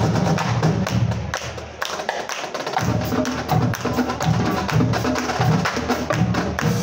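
Marching drumline playing a retreat cadence: rapid, sharp snare strokes and stick clicks over a repeating pattern of tuned bass drums. The low bass drums drop out briefly about two seconds in, then come back.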